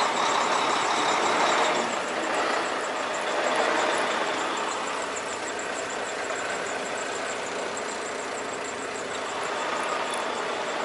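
Semi-truck's diesel engine running at low revs as the tractor-trailer reverses slowly, a little louder in the first two seconds and again about four seconds in.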